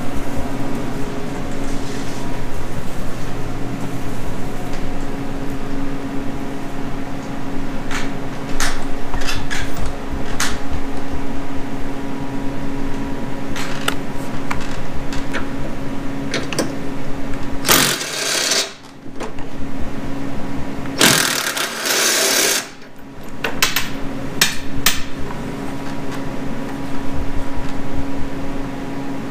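A cordless drill working on the bolts of a small snowblower engine, with a rapid rattle for long stretches over a steady low hum. Scattered clicks come about eight to ten seconds in, and two short bursts of hiss come near eighteen and twenty-one seconds.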